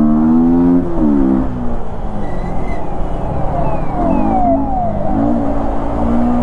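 Yamaha MT-15's 155 cc single-cylinder engine, running with an open air filter, pulling the bike along at speed. The revs drop about a second in, dip and climb again in the second half, with a few short falling whistles in the middle.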